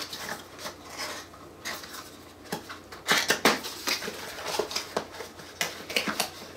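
Hands handling and opening a thin cardboard product box, working its end flap loose and folding it back: a run of small clicks, scrapes and rustles of paperboard, getting busier about halfway through.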